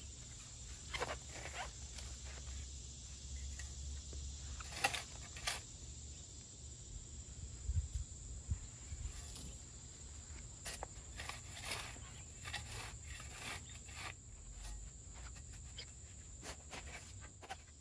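Flat-bladed garden shovel cutting into and lifting turf: irregular short scrapes and crunches of the blade driven through soil and grass roots, over a steady high insect drone.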